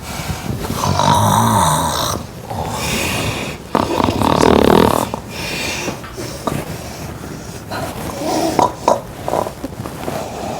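A person snoring heavily in bed: a string of long, loud, rasping snores, the loudest about four seconds in, then shorter, weaker snorts.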